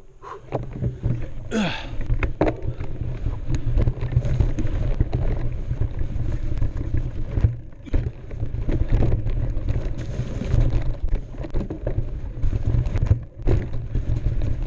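Mountain bike descending a dirt trail: steady rumble of wind and trail vibration on the bike-mounted camera's microphone, with frequent rattles and knocks from the bike over rough ground. A brief falling squeal comes about two seconds in.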